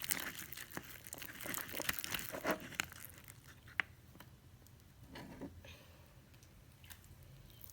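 Slime being stirred in a container, a sticky crackling and clicking that is busiest in the first three seconds and then thins out to scattered clicks.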